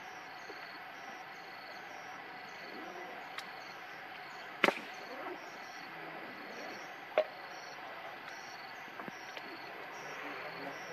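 Insects chirping in short high pulses about twice a second over a steady hiss. Two sharp clicks stand out: a loud one about halfway through and a second about seven seconds in.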